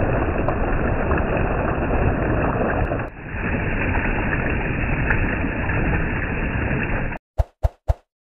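Rushing stream water pouring and splashing over rocks, a steady noise with a short dip about three seconds in. It cuts off suddenly near the end, and three short sharp sounds follow in quick succession.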